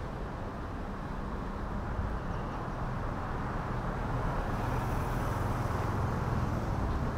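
Steady traffic noise with the low hum of a vehicle engine running close by, growing louder in the second half.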